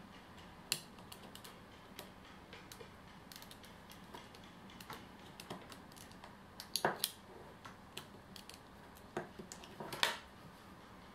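Snap-off utility knife blade scraping and scoring the aluminium can of an old multi-section electrolytic capacitor: irregular clicks and scratches, loudest in short clusters about seven and ten seconds in.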